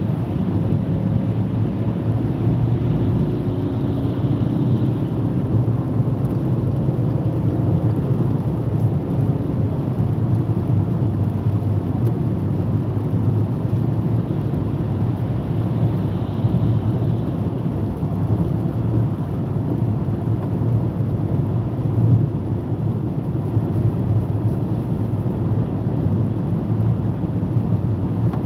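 Steady low rumble of a car travelling at motorway speed on a wet road, heard from inside the cabin: tyres running on wet tarmac, with engine noise.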